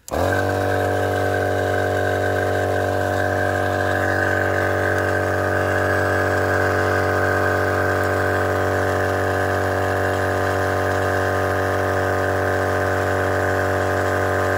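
Portable 12-volt dual-piston air compressor switching on abruptly and running steadily at an even pitch, inflating a 4x4 tyre as the pressure builds.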